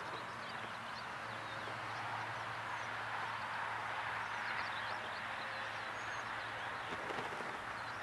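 Outdoor ambience of many small birds chirping: short high calls scattered throughout, over a steady hiss and a low, even hum.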